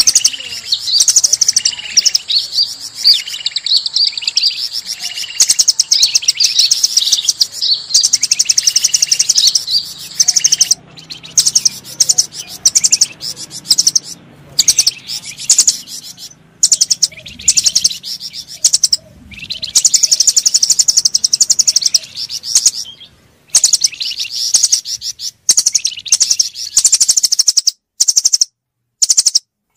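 Lure recording of many small forest birds calling at once: dense, rapid high-pitched chirps and trills, breaking into short bursts with sudden cut-offs near the end.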